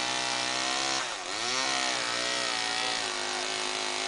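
Two-stroke chainsaw running at high revs; its pitch dips sharply about a second in and climbs back, then holds steady.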